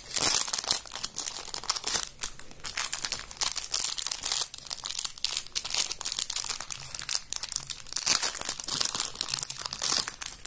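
Thin clear plastic packets crinkling and crackling irregularly as small erasers are handled and pulled out of them. The sound stops near the end.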